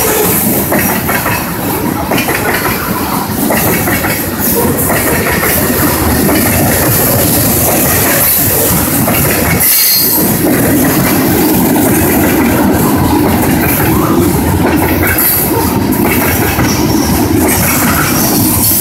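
Loaded CSX coal train's freight cars rolling past at close range: a steady, loud rumble and clatter of steel wheels on the rails.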